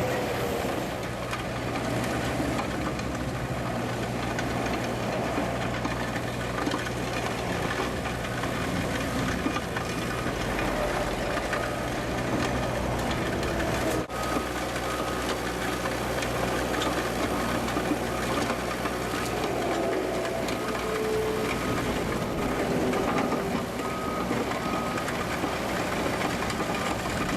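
Liebherr A 904 excavator's diesel engine running steadily while its hydraulic drum cutter grinds lean concrete. A short high beep repeats now and then. There is a brief break about halfway through.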